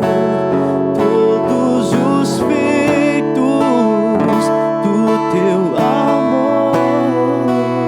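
Strummed acoustic guitar accompanying a slow worship song, with a melody line gliding over steady sustained chords.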